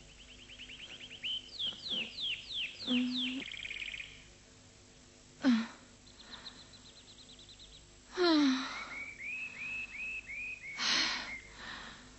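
Birds chirping in quick repeated runs of high calls. An old woman lets out a few tired, falling sighs or groans, about halfway through and again later, with a short sharp exhale near the end.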